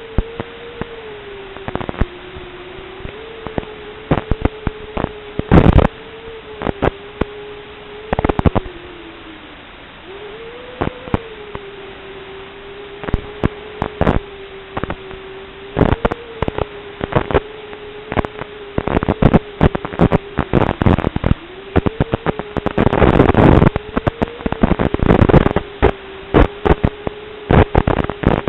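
Audio of an analog FPV video link recorded by the goggles' DVR: a steady hum that wavers slightly in pitch, broken by frequent crackles of static. The crackles come thicker in the second half.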